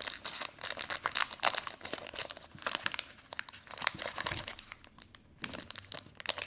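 Foil Pokémon booster pack wrappers crinkling and rustling in the hands, a dense crackle that thins out about five seconds in.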